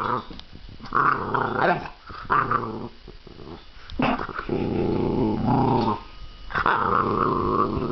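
Boxer puppy growling in repeated bursts of about a second each, agitated by a metal cut-out sculpture it dislikes.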